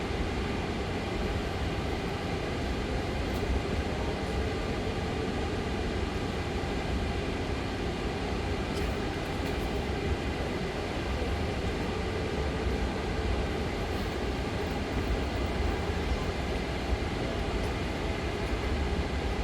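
Distant fireworks display: a continuous low rumble in which many bursts run together, with small swells in loudness but no single sharp bang standing out.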